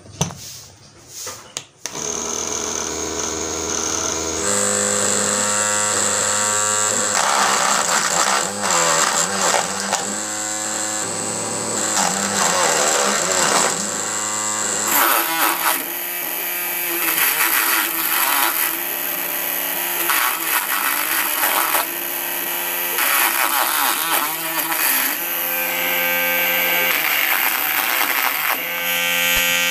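Small DC motor running in a homemade chilli chopper, its blade cutting green chillies fed in through the lid, under a background music track.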